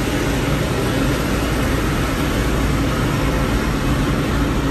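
Automatic car wash heard from inside the car: a steady noise of water and foam spraying over the windshield and body, with the wash machinery running.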